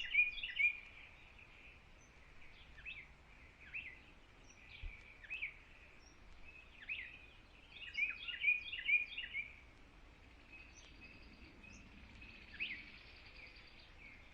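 Songbirds singing: scattered short chirped notes, with a quick run of several notes at the start and another about eight seconds in, over faint outdoor background hiss.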